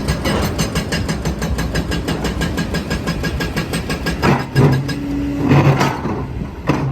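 Heavy diesel engine of an excavator running with a rapid, even clatter. About four seconds in it gives way to louder, uneven surges.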